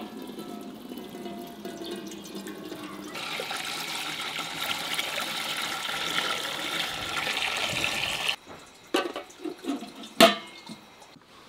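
Water poured from a metal jug into a large aluminium pot, a steady splashing stream that grows louder and then stops abruptly about eight seconds in. A few knocks follow, with a loud metallic clank near the end as the aluminium lid is set on the pot.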